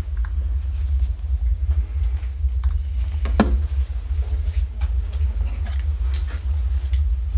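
Small clicks and taps of a mobile phone being handled and set down on a bedside table, with one sharper click about three and a half seconds in, over a steady low rumble.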